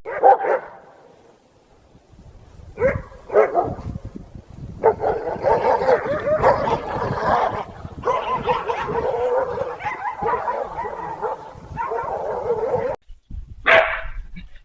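A dog barking: a single bark, two more barks about three seconds in, then a long unbroken run of barking and yelping that cuts off suddenly, and one more bark near the end.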